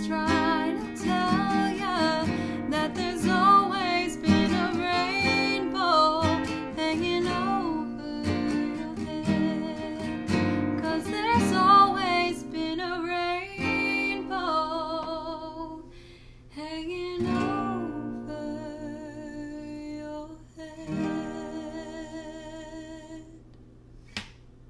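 Woman singing with vibrato over a strummed Taylor acoustic guitar. In the second half the song winds down to long held notes and chords that die away, with a small click just before the end.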